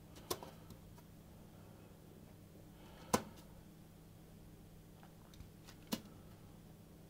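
A few light, sharp taps, the loudest about three seconds in, as slices of chilled biscuit dough are set down on a parchment-lined baking tray, over a faint steady hum.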